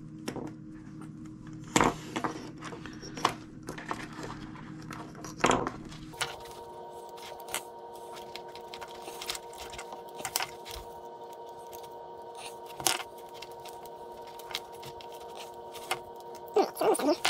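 Irregular light metallic clicks and scrapes of 7x19 steel cable strands being unlaid by hand and set down on a wooden bench, with a small cluster of clicks near the end. A steady hum runs underneath and changes tone about six seconds in.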